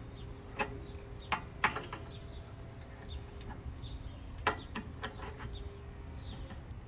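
Scattered sharp clicks and taps of small metal air fittings being handled while their threads are wrapped in Teflon tape, over a steady low hum.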